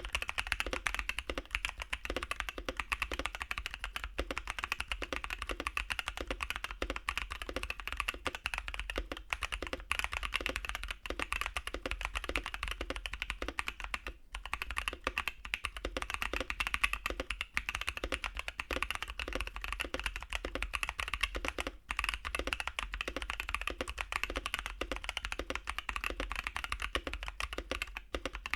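Fast, continuous typing on a custom Gray Studios Space65 CyberVoyager mechanical keyboard with lubed Gazzew Boba U4T 62g tactile switches and KBDfans PBT keycaps. It is a steady stream of keystrokes, pausing briefly about halfway and again about three quarters through.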